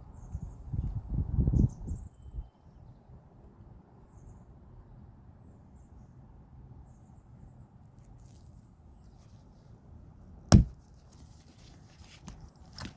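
Dull handling and rustling noises for the first couple of seconds, then near-quiet room tone, broken by one sharp knock about ten and a half seconds in and a fainter one near the end.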